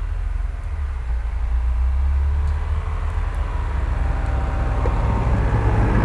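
Mitsubishi Pajero Sport SUV driving slowly up a snowy track toward and past the listener, its engine running steadily. The engine and tyre noise on snow grow louder as it nears, near the end.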